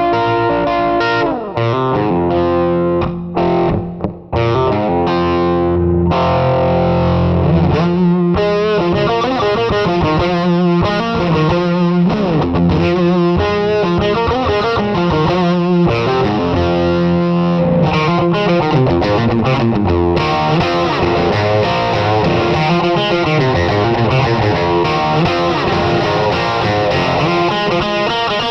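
Background music: electric guitar played through distortion and effects, with a dense run of changing notes.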